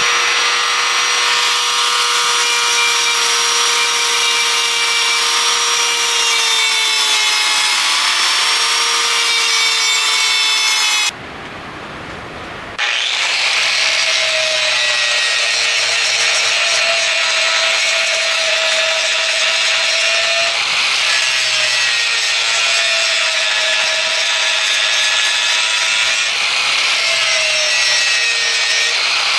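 Angle grinder running and grinding a steel plate held in a vise: a steady motor whine over a harsh grinding hiss, its pitch dipping slightly as the disc is pressed in. It breaks off briefly about eleven seconds in, then resumes at a slightly higher pitch.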